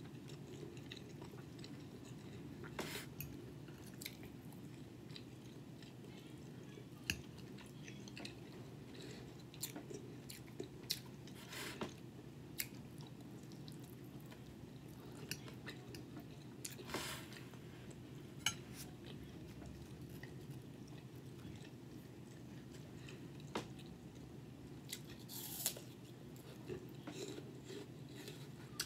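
Close-miked chewing and mouth sounds of someone eating a bacon, egg and cheese omelette, with scattered short sharp clicks over a steady low hum.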